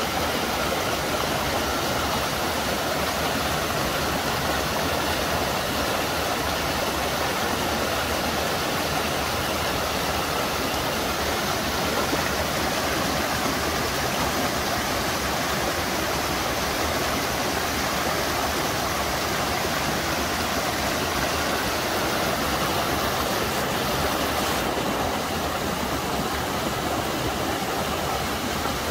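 Steady rushing of water running over rocky rapids and small falls, an even hiss with no break; the highest part of the hiss drops a little about 25 seconds in.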